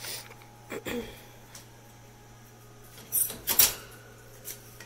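A wire bird cage's door and a feeding cup being handled: a few light clicks, then a short clatter about three seconds in.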